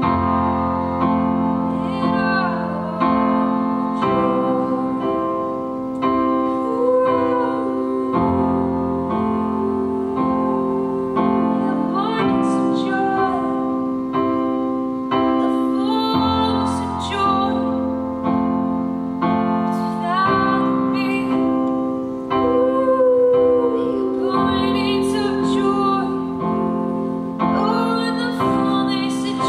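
A woman singing a worship song with a keyboard playing piano chords beneath her, the chords changing every few seconds.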